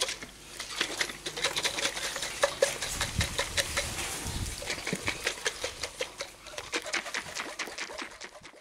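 Cream being whipped in a glass mason jar shaken hard by hand, a quick run of knocks and rattles from the liquid and the screw lid with each stroke.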